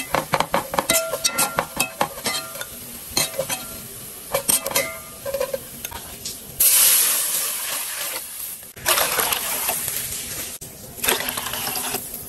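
Metal spatula scraping and clinking against an aluminium pot while minced garlic fries in oil, with short metallic rings. From about halfway, loud hissing comes in surges as the pot fills with boiling liquid.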